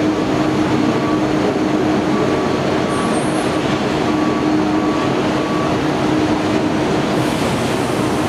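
Steady, loud drone of jet aircraft machinery, with a constant low hum running through it.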